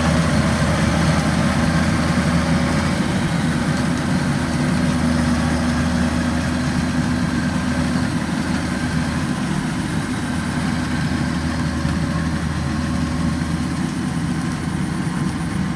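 Kubota DC93 combine harvester's diesel engine running steadily, with an even low engine note throughout.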